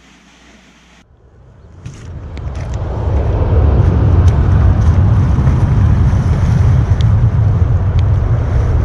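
Wind buffeting the microphone: a loud, low rumble that swells in over about two seconds and then holds steady, with a few faint clicks on top.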